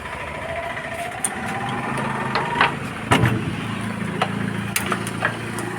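A small engine running steadily, with a few sharp metal clinks and knocks from hand tools on engine parts, most of them in the second half.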